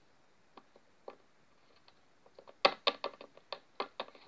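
Light clicks and taps of a plastic toy dog figure being handled and set down on a tabletop. A few scattered taps come first, then a quick run of sharper clicks from about halfway through.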